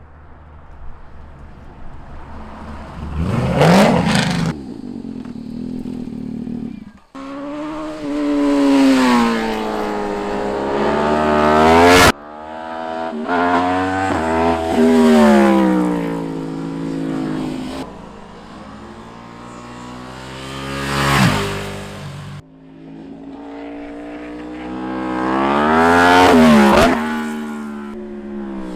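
A string of sport motorcycles passing one after another at speed, each engine revving up and down and its pitch dropping as it goes by, with several abrupt cuts between passes.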